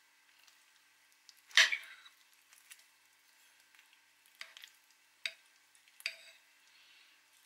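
Spoon and fork scraping and clinking against a ceramic plate while eating, four short strokes, the first about a second and a half in being the loudest.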